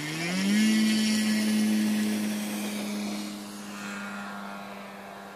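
The brushless electric motor and 18x12 propeller of a large RC Piper J-3 Cub tow plane throttling up to takeoff power. The pitch rises for about half a second into a steady high drone, which fades as the plane takes off and pulls away.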